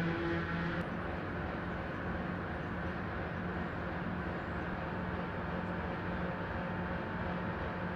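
Steady low industrial hum and rumble of heavy machinery, with a rising motor whine that stops about a second in.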